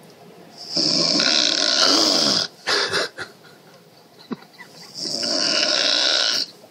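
A woman snoring loudly: two long snores about four seconds apart, with a shorter snort between them.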